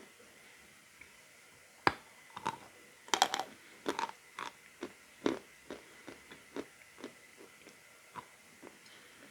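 A chunk of slightly damp natural chalk bitten and chewed: one sharp snap about two seconds in, a burst of crisp crunches a second later, then a run of separate chewing crunches that grow fainter toward the end.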